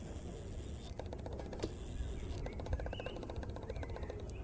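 GWR 14xx 0-4-2 tank locomotive No. 1450 and its auto coach running slowly over curved track: a fast run of light clicks and ticks over a steady low rumble, with two short spells of hiss.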